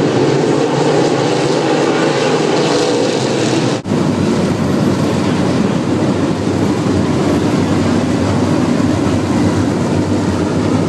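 A field of UMP dirt modified race cars racing on a dirt oval, their V8 engines blending into one loud, steady wall of engine noise. There is a brief drop-out about four seconds in where the recording cuts.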